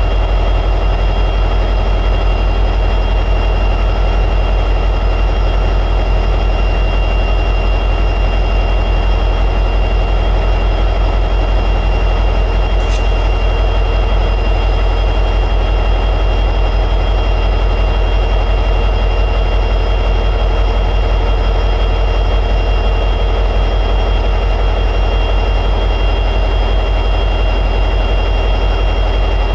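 EMD 710G3B two-stroke diesel prime mover of an SD60E locomotive running steadily at high idle, with a deep, constant rumble and a steady whine over it. A single brief click about thirteen seconds in.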